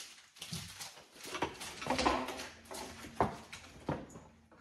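Handling noise from a plastic cabinet-hardware jig: scattered knocks, clicks and rustles as it is moved and set against a wooden drawer front, with the sharpest knock about three seconds in.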